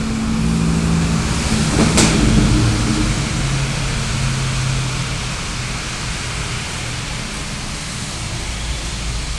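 Steady hiss with a low hum, and a single sharp knock about two seconds in.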